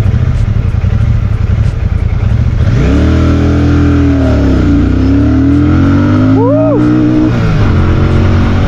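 Royal Enfield Shotgun 650's parallel-twin engine idling, then revving up as the motorcycle pulls away about three seconds in. The revs dip once midway, rise again and fall off near the end.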